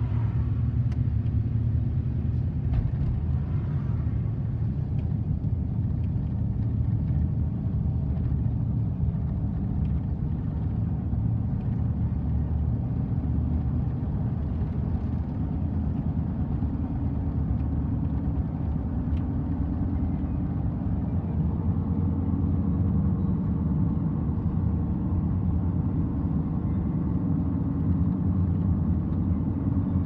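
Steady low road rumble inside the cabin of a moving car: engine and tyre noise at road speed.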